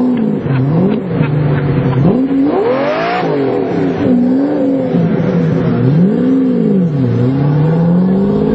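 Supercar engine revved again and again, its pitch rising and falling in repeated swells, with the highest climb about three seconds in.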